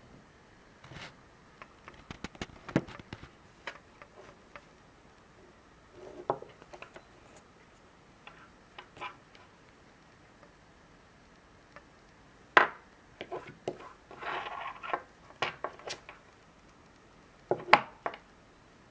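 Handling noise from a laptop's wall-plug power adapter and its coiled cord: scattered clicks and light knocks as they are turned over and set down on a wooden desk, with a short rustle of the cable. Two sharper knocks stand out, one a little after the middle and one near the end.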